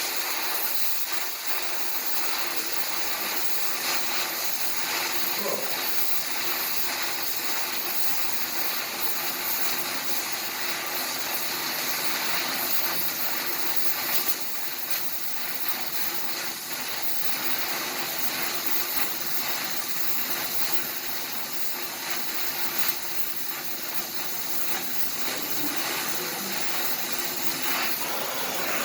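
Welding in progress: a steady, continuous hiss with fine crackle, dipping briefly about halfway through.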